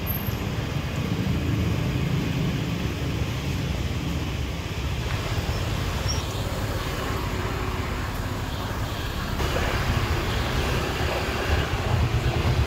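Steady low rumble of street traffic, growing a little louder near the end.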